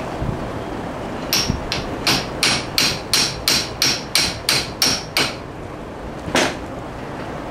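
Hammer tapping on the end of a steel gearbox shaft of a Massey Ferguson Model 25 hay rake to drive it down out of its ball bearing: about a dozen quick metallic strikes, roughly three a second, then a pause and one more strike.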